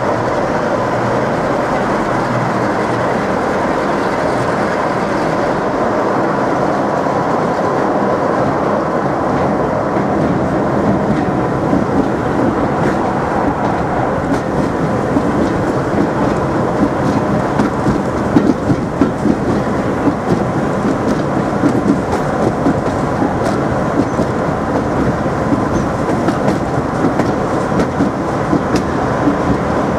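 A heritage passenger train running along the line, heard from a coach window: a steady rumble of wheels on rail, with a sharper clatter of wheels over rail joints getting stronger about halfway through.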